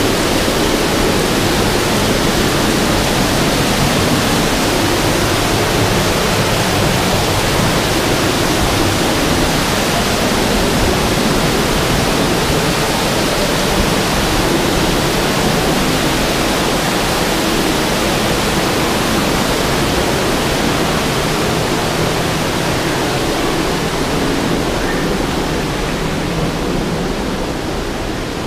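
Waterfall pouring down a rock face, heard from right beside it: a loud, steady rush of falling water, softening slightly near the end.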